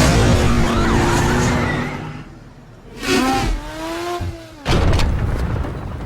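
Car skidding with squealing tyres, the squeals gliding up and down in pitch. There are sharp hits about three seconds in and again near five seconds.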